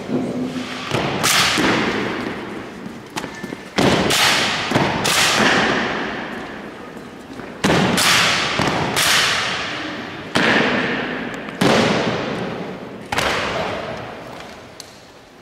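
Rifle drill by an honour guard of soldiers: a series of sharp strikes made in unison, some in quick pairs, each echoing away for a second or more through the church.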